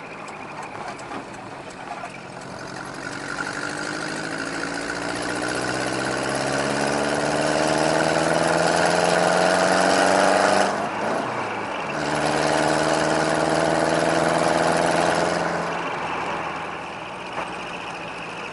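Subaru Sambar TT kei truck's four-cylinder engine, exhaust split into a dual muffler, heard from inside the cab with a deep burbling note. It pulls hard with the pitch climbing, breaks off briefly about eleven seconds in for a gear change, pulls again, then eases off near the end.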